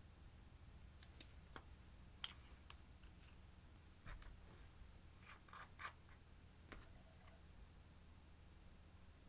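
Faint, scattered clicks and short scratches of small objects being handled by hand, with a small cluster about four seconds in and another a little before six seconds.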